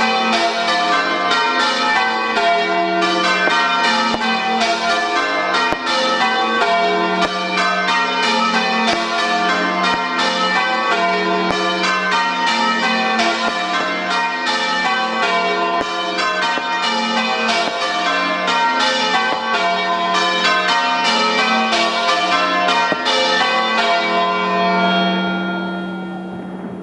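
Church bells change ringing: a rapid, unbroken sequence of overlapping bell strokes. Near the end the ringing stops and the last notes die away.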